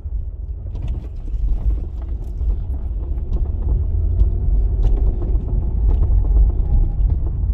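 Car driving slowly, heard from inside the cabin: a steady low engine and road rumble that swells a little in the middle, with a few light clicks.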